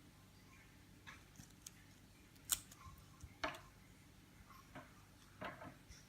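Faint scattered clicks and taps of hands handling a Samsung Gear S3 smartwatch as it powers on, the sharpest click about two and a half seconds in and a small cluster near the end.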